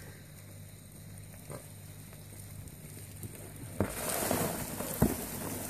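A hand rummaging through a mass of dubia cockroaches and their frass in a plastic tub: a crackling rustle that starts near the end, with a couple of sharp knocks. Before it, only a faint low hum.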